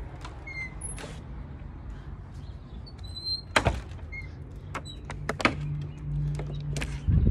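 Handling noise: scattered sharp clicks and knocks, with a few short high chirps and a low steady hum in the last couple of seconds.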